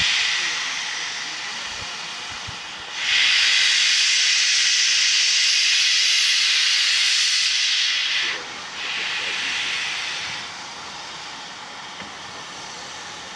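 Steam locomotive letting off steam in loud hissing blasts: one fading at the start, a long hiss of about five seconds from about three seconds in, then a shorter one of under two seconds.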